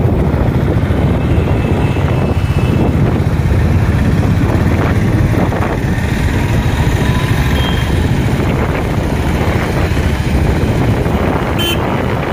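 Steady low rumble of wind and engine noise while riding a motorbike through traffic.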